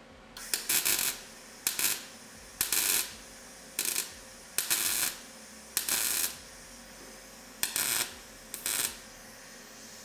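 A welder laying short stitch or tack welds on a thin sheet-metal patch panel: about eight brief crackling bursts, each under a second, with short pauses between them.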